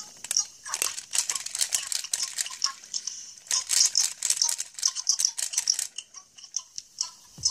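Small toys or packaging rattling and clicking irregularly as they are handled.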